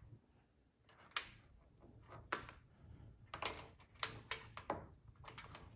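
Scattered light clicks and taps, about half a dozen over a few seconds, from hands working the rocker switches and test leads while circuits are switched and checked with a multimeter.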